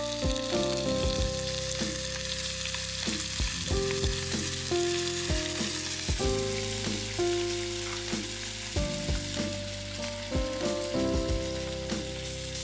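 Sausage links and slices frying in a nonstick pan over a gas camp-stove burner, with a steady sizzle throughout. Background music plays with it.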